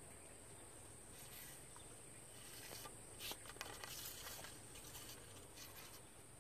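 Faint outdoor ambience: a steady high-pitched insect drone, with a cluster of small clicks and rustles midway.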